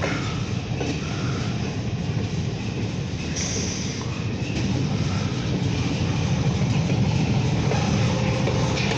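Freight train rolling past with a steady low rumble of wheels and a diesel locomotive shoving from the rear end of the train. The rumble grows a little louder about halfway through.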